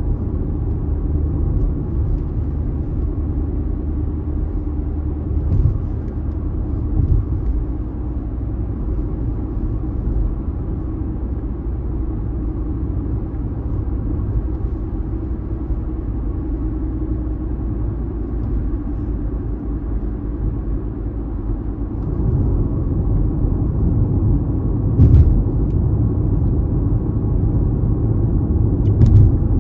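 Steady low rumble of a car driving on a city road, engine and tyre noise together, a little louder in the last part, with two brief thumps near the end.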